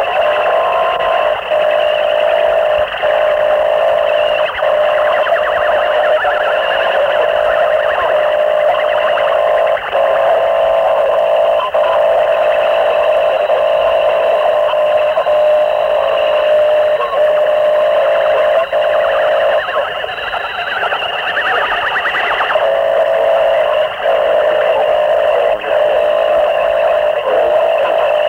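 Harsh noise music from a cassette demo: a dense, distorted wall of noise made with microphones and homemade electronics, held steady in the middle range, with short dips in loudness every second or two.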